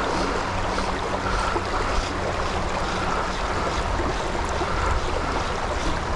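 Shallow creek water running steadily over a gravel riffle, with a low wind rumble on the microphone.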